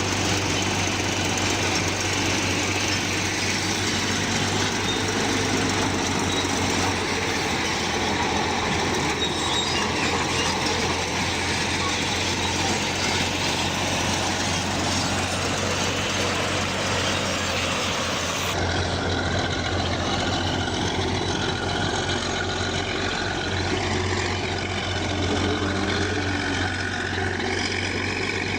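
Bulldozer working, its heavy diesel engine running steadily under load amid dense mechanical clatter. About two-thirds through, the sound cuts abruptly to a slightly different mix of the same kind of machine noise.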